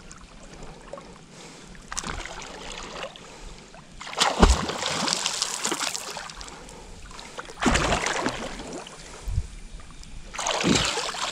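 Water splashing and sloshing in four bursts of a second or two as a man moves and ducks under in chest-deep pond water, with a few sharp slaps. Heard from a camera held at the waterline.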